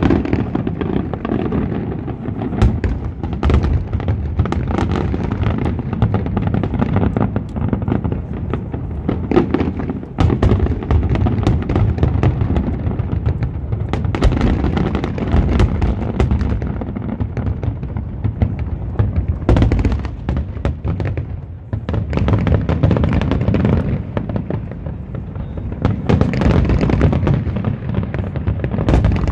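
Aerial fireworks shells bursting over a river in a dense, continuous barrage: a heavy rumble of booms with many sharp cracks on top, easing briefly about two-thirds of the way through before building again.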